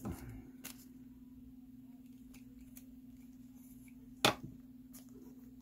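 A trading card being handled in a soft plastic penny sleeve: a faint click about two-thirds of a second in, and one sharp click a little past four seconds as the sleeve is worked off the card, over a faint steady hum.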